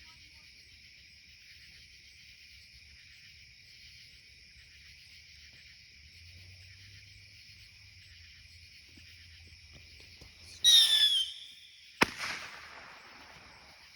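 A firework goes off: a short, loud whistling burst near the end, then about a second later a sharp bang that echoes away. Crickets chirp steadily underneath.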